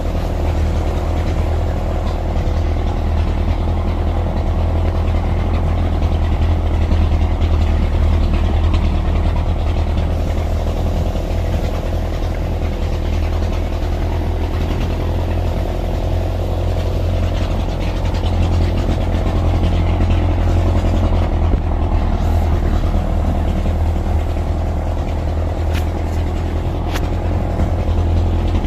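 Off-road vehicle engine running steadily at low revs with a deep drone, the revs swelling slightly now and then.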